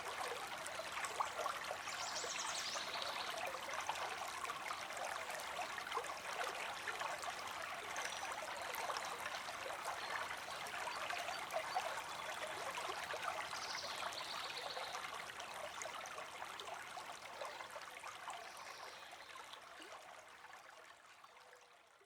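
Small creek running and trickling in a steady babble of water, fading out gradually over the last several seconds.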